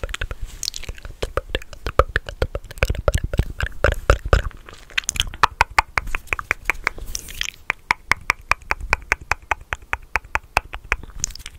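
Close-miked ASMR mouth sounds: wet mouth clicks and smacks with fingers at the lips, right against a condenser microphone. Irregular at first, then a fast, even run of clicks from about halfway.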